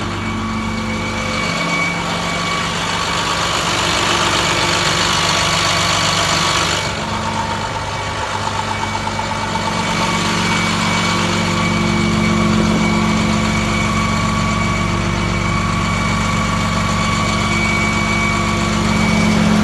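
2009 International DuraStar 4300's diesel engine idling steadily. A rushing hiss rides over it and cuts off abruptly about seven seconds in.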